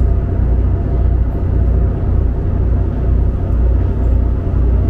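Steady low rumble of a river water bus's engines running as the boat gets ready to depart, heard from aboard.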